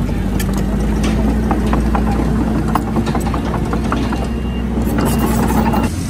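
Komatsu D31PX bulldozer's diesel engine running steadily, with scattered sharp clanks and knocks through it.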